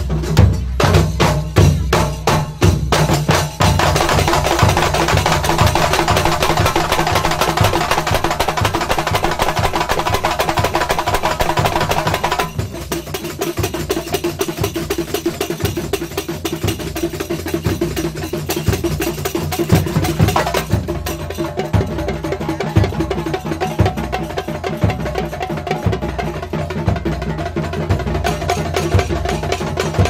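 A live traditional percussion band playing a fast, steady rhythm on drums, with sharp clacking hits. A high held note sounds over the drums from about four seconds in until about twelve seconds in.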